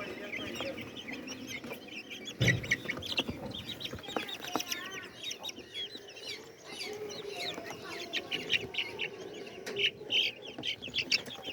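A flock of Black Australorp chickens clucking and calling over one another in a continuous chatter. A sharp knock sounds about two and a half seconds in.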